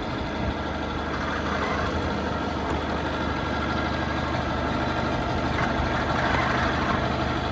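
Engine of a farm machine handling potato boxes, running steadily at an even, low note.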